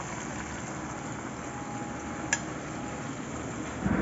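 Breaded chicken leg pieces deep-frying in a pan of hot oil, a steady sizzle, now fully fried. There is a single sharp click about two seconds in.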